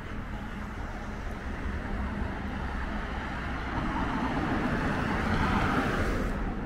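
Outdoor road traffic: a steady low rumble, with a vehicle's noise swelling up over a few seconds and cutting off abruptly near the end.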